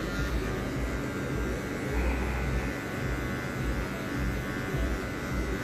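Wahl electric hair clipper running with a steady hum while cutting a fade on the side of the head, its blade fitted with a guard comb.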